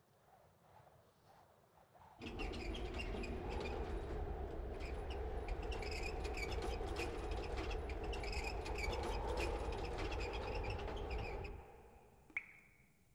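A dense layer of many quick high chirps and clicks over a steady low rumble, starting abruptly about two seconds in and cutting off abruptly near the end. Then comes a single sharp click with a short ringing tone.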